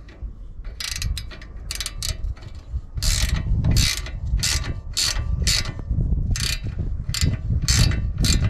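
Ratcheting combination wrench clicking in short bursts, about two a second, as it runs the nut down onto a sway bar link stud.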